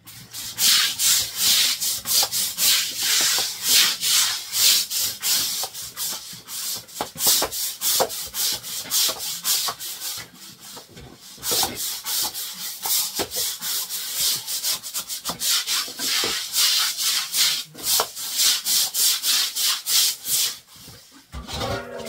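Repeated irregular scraping and rubbing strokes, several a second, with short gaps.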